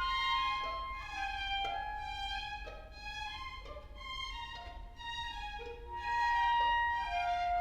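Classical music, with violins playing a melody of sustained notes that change about every half second to a second.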